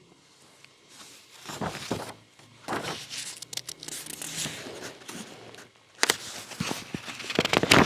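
Paper rustling and crinkling close to a lectern microphone, in several uneven bursts, the loudest starting about six seconds in.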